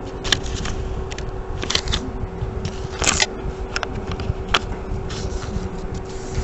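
A paper sticky note being handled and pressed down onto a notebook page: short rustles and crinkles, the loudest about three seconds in. A steady low hum runs underneath.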